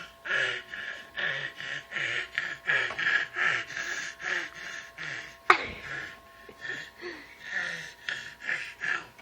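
A toddler making a string of short, breathy vocal noises, about two a second, with one sharp loud click about halfway through.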